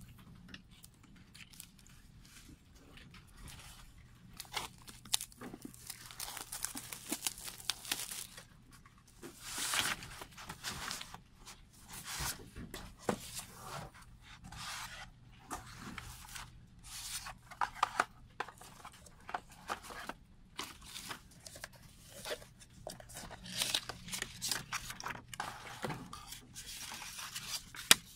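Plastic shrink-wrap crinkling and tearing as it is pulled off a boxed CD/DVD set, then cardboard cases and paper inserts rustling, sliding and tapping together as they are handled and unfolded. Irregular crackles and scrapes with short sharp taps.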